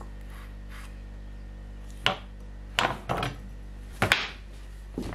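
Kitchen knife slicing small tomatoes on a wooden cutting board: about five sharp knocks of the blade against the board, starting about two seconds in, over a low steady hum.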